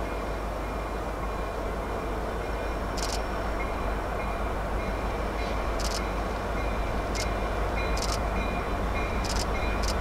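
A distant freight train led by diesel locomotives (CN SD75I and C44-9W) approaches, a steady low rumble slowly growing louder. A few short, sharp clicks are heard in the second half.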